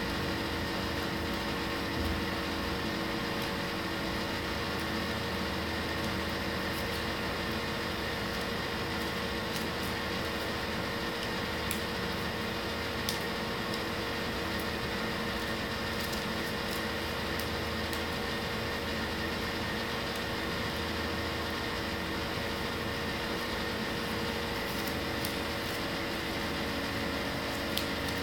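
Steady mechanical hum of a running room appliance, with several constant tones held throughout. A few faint ticks as paper petals are handled, around two seconds in, near the middle and near the end.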